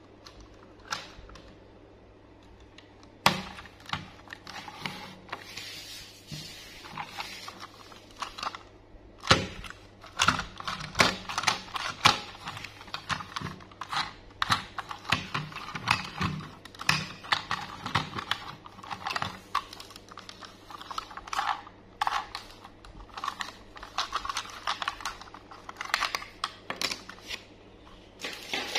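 Hard plastic toy locomotive being handled: irregular clicks, taps and knocks as it is lifted, turned over and its battery compartment cover is unclipped, with a couple of sharper knocks against the table.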